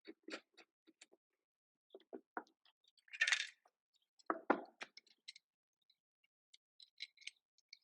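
Scattered light clicks and knocks of hand tools and wood being handled. A short scrape comes about three seconds in, and a heavier knock follows about a second later.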